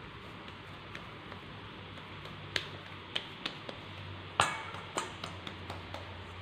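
Sharp ticks and knocks on a stainless steel bowl as a ball of soft dough is handled over it, set down in it and pressed flat, the loudest knock about four and a half seconds in.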